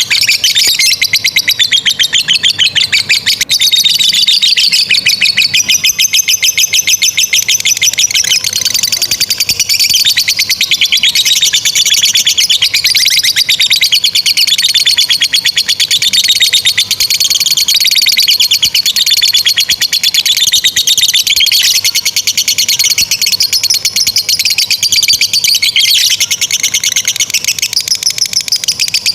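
Lovebird chattering in a long, unbroken, very fast trill whose pitch wavers up and down: the 'ngekek panjang' long chatter that lovebird keepers prize.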